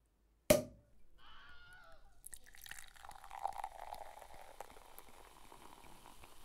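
A sharp hit about half a second in, then liquid sounds, dripping and pouring, with a wavering tone mixed in.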